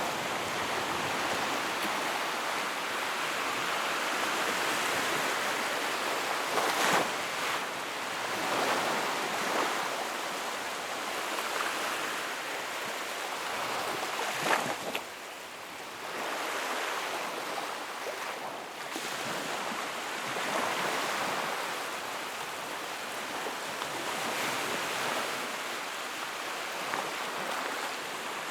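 Wood fire in a fireplace crackling and hissing steadily, with a few sharper pops, one about seven seconds in and another about halfway through.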